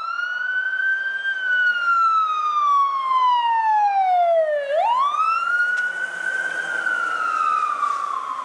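Fire department emergency vehicle siren wailing. Its pitch jumps up quickly and then slides slowly down over about four seconds, twice.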